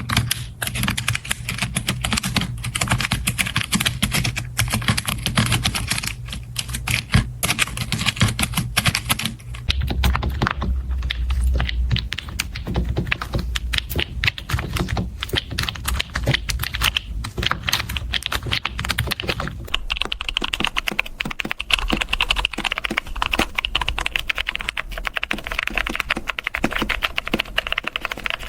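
Fast, continuous typing on a computer keyboard: a dense patter of key clicks. The tone of the clicks changes about ten seconds in and again about twenty seconds in.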